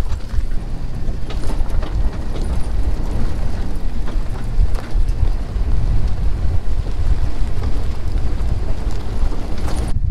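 A vehicle's cabin rumbling and rattling as it drives over a very rough dirt road, with a steady deep rumble and frequent small knocks and jolts.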